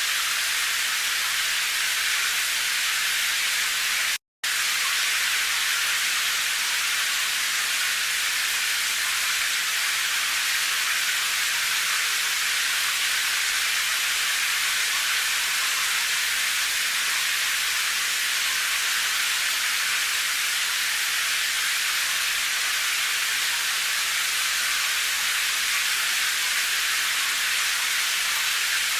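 Steady rain, heard as an even hiss, with a split-second gap of silence about four seconds in.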